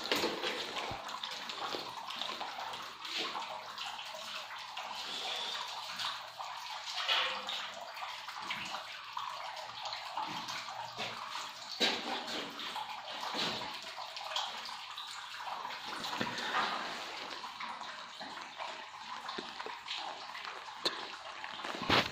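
Steady rush of running water, with a few sharp knocks, the loudest near the end.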